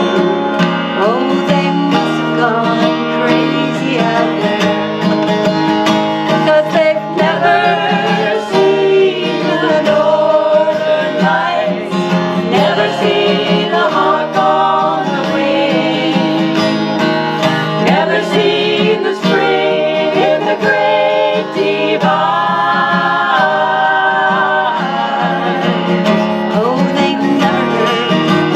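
A cowboy song sung by four women's voices together, accompanied by a strummed acoustic guitar.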